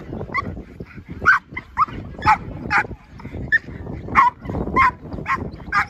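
American Pit Bull Terrier barking repeatedly in short, sharp, high barks, about two a second.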